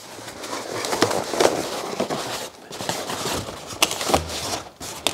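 Latex balloons being handled and pushed against one another and the foil balloon: irregular rubbing and crackling with a few sharp clicks.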